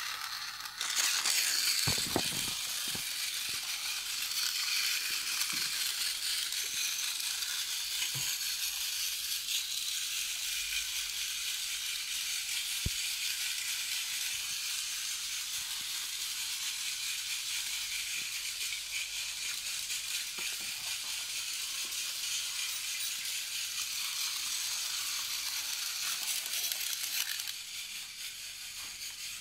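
Battery-powered Tomy toy train engines running along plastic track: a steady, high whirr and rattle of their small motors and gears. It starts about a second in and eases slightly near the end.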